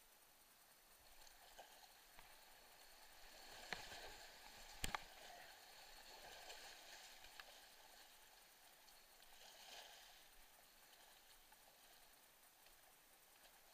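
Faint rush and splash of fast creek water around a whitewater kayak as it runs a riffle, swelling in the middle and again briefly later. Two sharp knocks stand out, about four and five seconds in.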